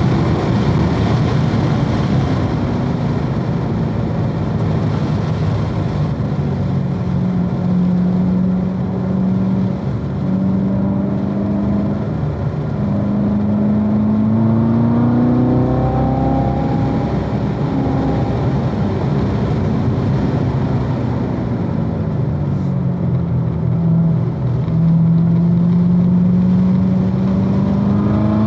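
2016 Corvette Z06's supercharged 6.2-litre V8 being driven hard on track, its note dropping as it slows, then climbing over several seconds as it pulls out again, twice over.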